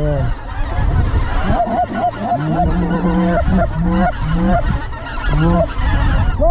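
A flock of greater white-fronted geese (specklebellies) calling overhead: many overlapping short, high, arched yelps mixed with lower, longer notes, over a steady low rumble.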